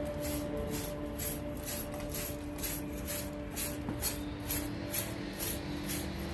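Background music: held notes that change pitch now and then, over a steady scratchy tick about twice a second.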